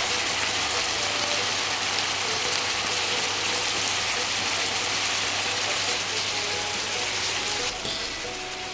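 Steady sizzling from a frying pan of meatballs, courgette and cherry tomatoes cooking on the hob, over a low hum. The sizzle drops away suddenly near the end.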